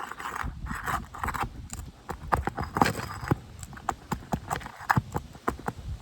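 Asphalt roof shingle being worked loose and its nails pried out with a pry tool: scraping at first, then a string of irregular knocks and clicks.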